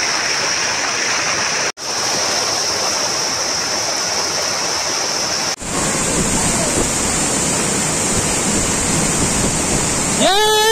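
Waterfall pouring onto rocks: a loud, steady rushing of falling water. It breaks off for an instant twice where the footage is cut. Near the end a person's voice calls out briefly, rising and falling in pitch.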